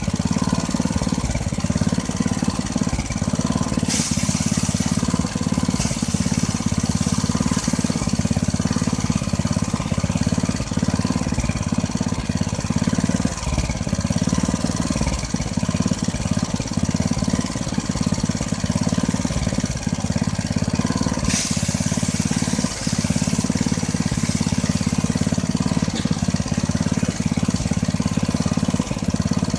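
Rice threshing machine running with a steady low hum. A rushing hiss joins twice, about four seconds in and again about twenty-one seconds in, each time for a couple of seconds.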